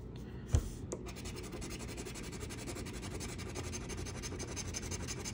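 Scratch-off lottery ticket's coating being scraped off in rapid, continuous strokes. There is a soft thump about half a second in, then a click.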